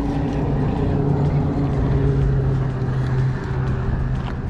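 An engine running with a steady low hum, a little louder in the first couple of seconds, over a low rumble.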